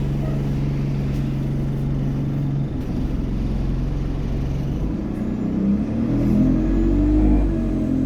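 Alexander Dennis Enviro200 bus engine running steadily, then pulling away about five seconds in, the engine note rising through the Allison automatic gearbox. A faint high turbo whine climbs in pitch as it accelerates.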